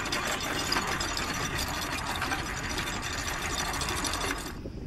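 Anchor windlass paying out chain, the links running with a steady rattle over the gypsy and bow roller as the anchor is lowered. It stops near the end.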